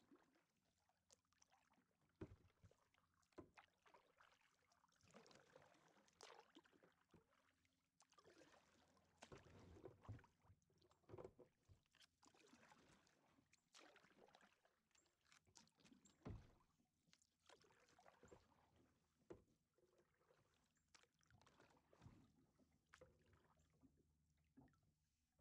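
Faint kayak paddling: irregular paddle strokes splashing into the water, with drips and occasional sharp knocks.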